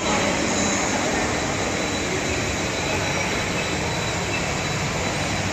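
Steady, even rushing noise with a faint high steady whine. It starts abruptly at an edit and carries no speech.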